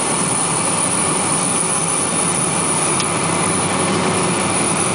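Cessna 208B Caravan's single Pratt & Whitney PT6A turboprop at takeoff power, heard from inside the cabin as a loud, steady drone.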